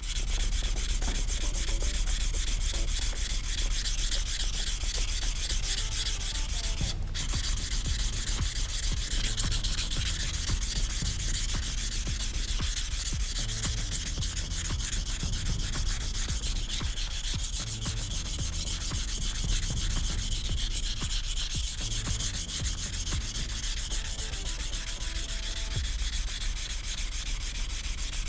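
A VG10 nakiri knife's steel blade scraping back and forth on a whetstone in quick, even strokes: the edge being ground. The strokes pause briefly about seven seconds in.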